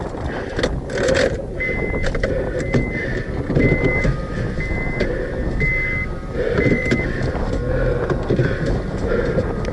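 A car running and driving, with a steady low rumble of engine and road noise. A short high electronic beep repeats about once a second, six times, through the middle of the stretch.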